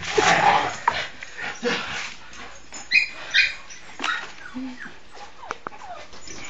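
Two young pit bulls playing rough and tugging at a toy, with short whines and yips and scuffling on the floor.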